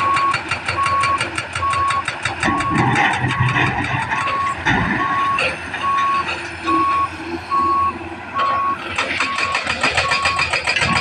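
Heavy earthmoving machinery running, with a backup alarm beeping at one steady pitch a little more than once a second. Louder low rumbling bursts come about two and a half and five seconds in.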